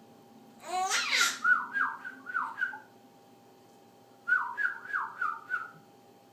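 A man making silly noises: a quick swooping vocal sound about a second in, then a run of four short falling whistled notes. The run of notes comes again about four seconds in.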